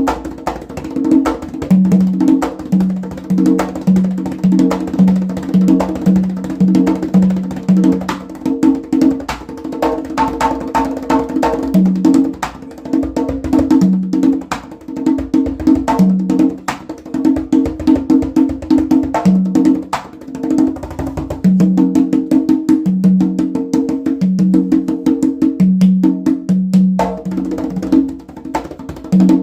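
Handmade Joiz congas played by hand in a steady, busy pattern. Deep open tones ring on a lower drum and higher tones on a second drum, mixed with sharp slaps.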